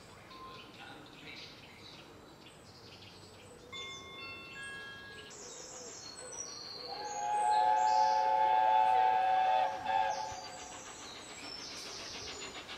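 A steam locomotive whistle sounds one held, several-toned chord for about three seconds, starting about seven seconds in. Birds chirp and sing around it.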